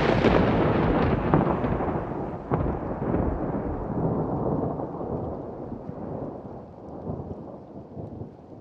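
A long thunder rumble with a few sharp cracks in the first few seconds, fading slowly as it dies away, with rain in the background.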